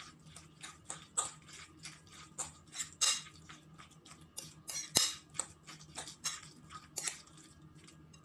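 A spoon clinking and scraping against a glass mixing bowl while stirring a chunky guacamole mix, in quick irregular strokes, with a couple of louder knocks about three and five seconds in.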